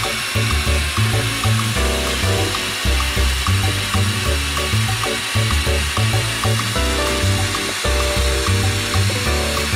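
Cordless drill grinding a diamond-coated bit through a wet glazed ceramic bowl, a steady wet hiss, under background music with a repeating bass line.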